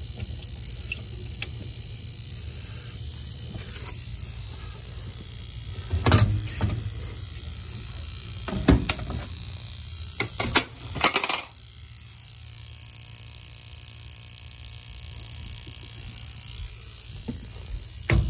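Scattered knocks and rattles of hands handling metal parts at a gas boiler's valve and burner assembly, with a cluster of clatters about ten to eleven seconds in, over a steady low hum.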